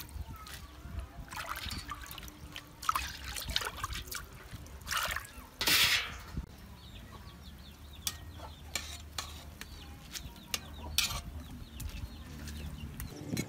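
Water splashing and trickling as leafy greens are swished and rinsed by hand in a metal bowl, in a run of splashes with the loudest just before six seconds in.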